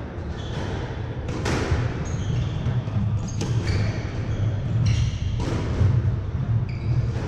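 Squash rally: a series of sharp hits, about one a second, as the ball is struck by the rackets and smacks the court walls, with short squeaks of shoes on the wooden floor between them.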